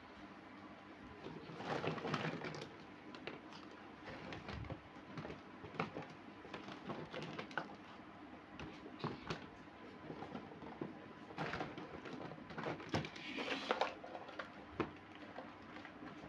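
Small plastic toy kitchen pieces clicking and clattering against each other as they are picked up, shuffled and set down, in irregular bursts that are busiest about two seconds in and again near the end.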